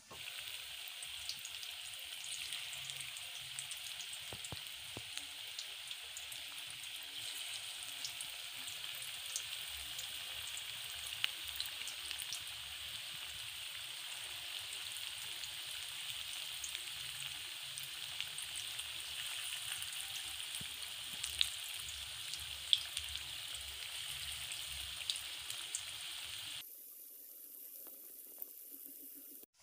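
Battered chicken pakora pieces deep-frying in hot oil: a steady sizzle with scattered crackling pops, dropping to a quieter level near the end.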